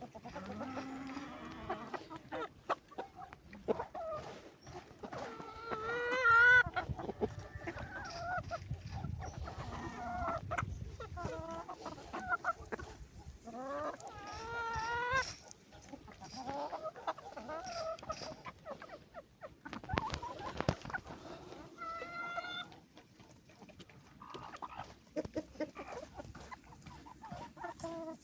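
Chickens clucking, with three louder, drawn-out wavering calls about eight seconds apart.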